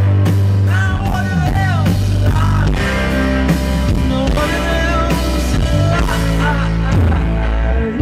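Live rock band playing: hollow-body electric guitar and bass guitar over a steady beat, with a man's singing voice gliding above them.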